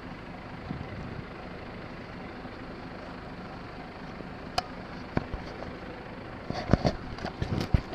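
A motor vehicle engine running steadily in the background, with a few sharp knocks near the end.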